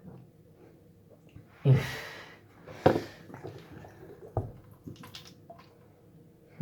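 A person's loud breath out through the nose close to the microphone, then a shorter second puff, followed by a few small clicks of handling.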